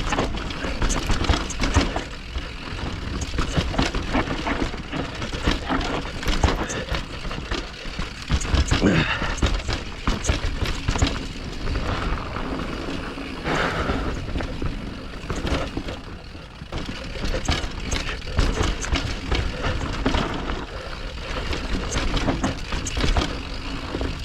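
Mountain bike riding fast down a rough dirt trail: steady wind buffeting on the microphone and tyre noise, with frequent clattering knocks from the bike over bumps.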